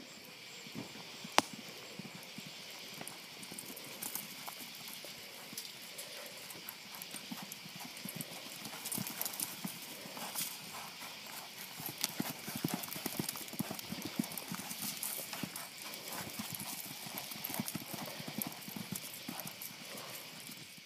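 A horse's hoofbeats on a dirt arena floor as it runs around a barrel, the beats getting louder and busier about eight seconds in. A single sharp click about a second and a half in.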